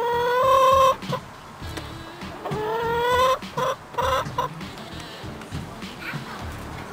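Domestic hens calling and clucking: a long, slightly rising call in the first second, another drawn-out rising call a little past the middle, then a few short clucks.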